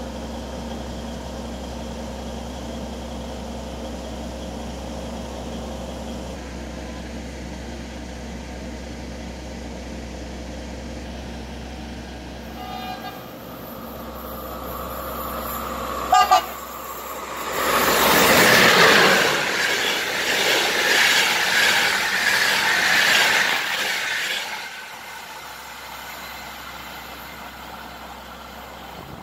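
A passenger train hauled by an electric locomotive passes at speed on the adjacent track. It gives a short, loud double horn toot about 16 seconds in, then rushes by loudly for about seven seconds before the noise drops away. A steady low hum lies underneath for the first part.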